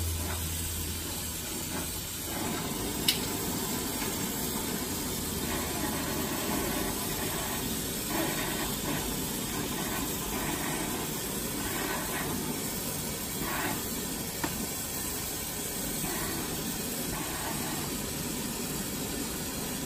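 Steady hiss of glassworking bench torches burning as glass is shaped in the flame, with a sharp click about three seconds in.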